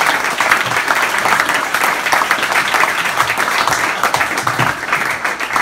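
Audience applauding: many hands clapping in a dense, steady patter that thins slightly near the end.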